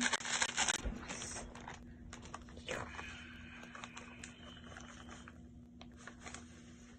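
Pancake-mix packet crinkling as it is shaken and emptied into a bowl, with the dry mix pouring out. The rustling is loudest in the first two seconds, then fainter, over a faint steady hum.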